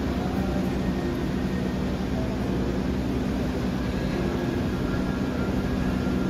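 Steady railway station ambience: a constant low engine-like hum under a dense background din.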